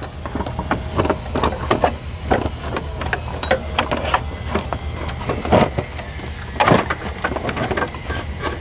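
Irregular metallic clanks and clicks as the engine-driven fan and fan clutch of a Ford F-150 SVT Lightning are worked off the water pump, over a steady low hum.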